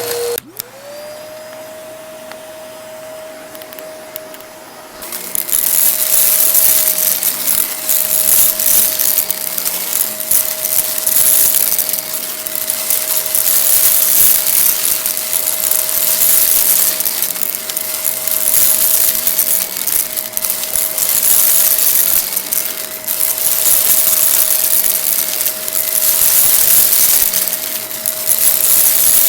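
Vacuum cleaner switched on with a click, its motor spinning up to a steady whine. About five seconds in it gets much louder as it starts sucking up debris from a rug, the grit crackling and rattling as it is pulled in.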